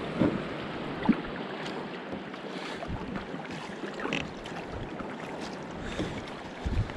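Kayak paddling: the paddle blades dipping and pulling through calm water, with water washing along the hull and some wind on the microphone. A couple of sharp knocks come in the first second, the loudest about a second in.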